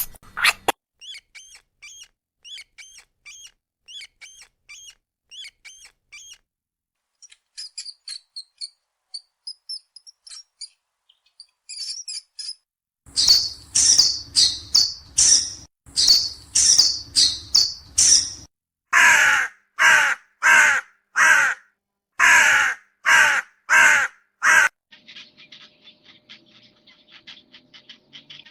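Bird calls: first a run of small repeated chirps, then, from about halfway in, a long series of loud, harsh, caw-like calls about two a second.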